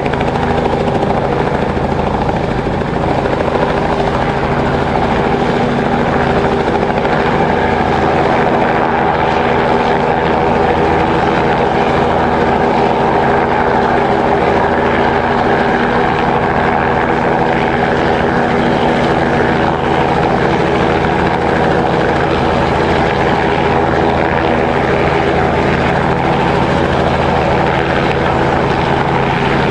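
Remotely piloted agricultural spray helicopter running, with a steady, even drone of rotor and engine.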